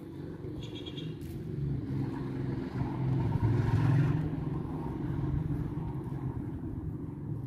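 A motor vehicle engine running close by, swelling to its loudest about halfway through and then easing off as it passes.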